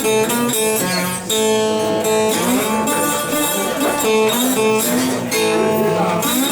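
Acoustic guitar playing a blues introduction, strummed and picked in a steady rhythm.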